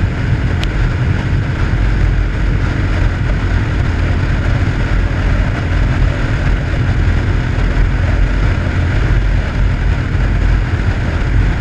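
Wind rushing over the microphone of an RPS Hawk 250 motorcycle cruising at road speed, with the engine running steadily beneath it.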